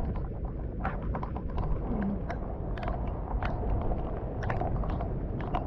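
Wet grass and water weeds rustling and swishing with many short crackles, as someone pushes through the flooded vegetation, over a steady low rumble.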